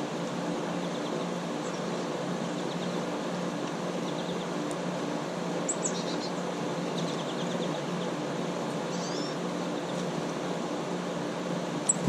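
Steady low hum of an outdoor air-conditioning condenser unit running, with a few faint, short, high bird chirps scattered through the second half.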